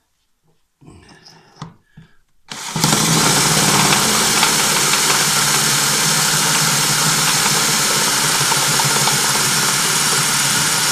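Cordless drill starting up about two and a half seconds in and running steadily, its bit boring through a guide sleeve into the stub of a sheared steel bolt in a lawnmower's blade shaft. Before it starts there are only faint handling sounds.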